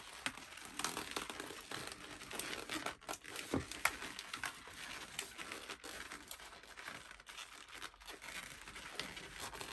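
Inflated latex twisting balloons being squeezed, pulled through and knotted: rubber rubbing on rubber with many small crackles and clicks, and a short squeak about three and a half seconds in.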